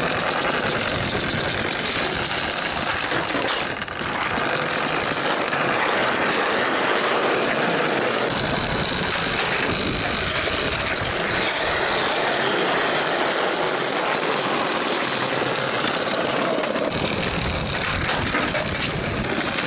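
Skateboard wheels rolling over brick paving, a steady rattling rumble.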